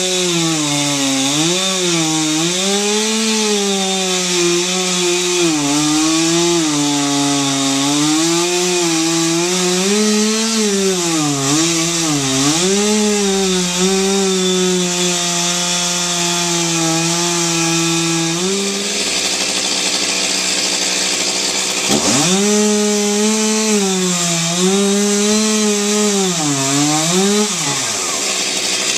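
Chainsaw running under load in wood, its engine pitch dipping and recovering repeatedly as the chain bites. It drops off about two-thirds of the way through, revs back up a few seconds later, and winds down near the end.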